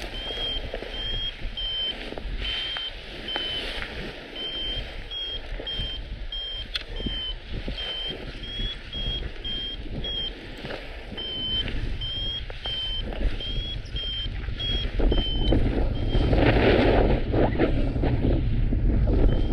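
Paragliding variometer beeping in short high tones, about two a second, its pitch shifting a little from beep to beep, the sound of climbing in lift. Wind buffets the microphone underneath and grows louder near the end as the beeps stop.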